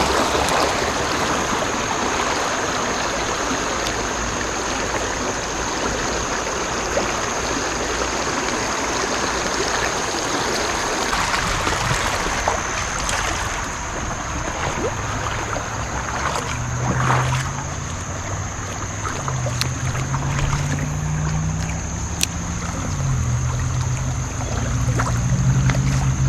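A small creek's water running steadily over shallow rapids. A steady high-pitched whine runs throughout, and a low, wavering hum joins in the second half.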